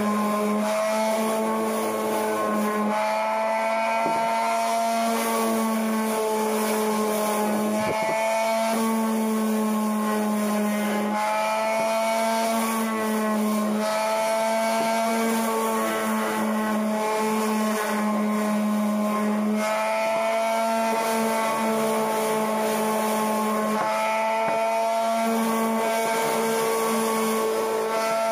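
Random orbital sander running on a wooden 2x4, a steady motor hum whose pitch wavers slightly as the pad's pressure on the wood changes.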